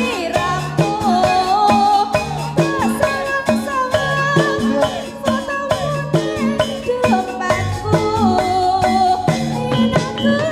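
Javanese jaranan accompaniment music, played loud: drum strokes and low repeating notes keep a steady beat under a wavering melodic line with bending pitch.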